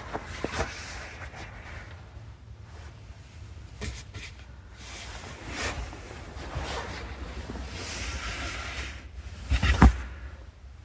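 Rustling and scattered light knocks of things being handled, with a louder pair of thumps near the end.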